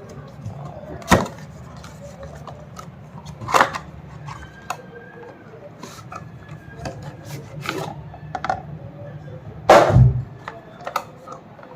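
Cardboard box and packaging being handled and opened: rubbing and scraping with a few sharp knocks, the loudest a heavier thud near the end, over a low steady hum.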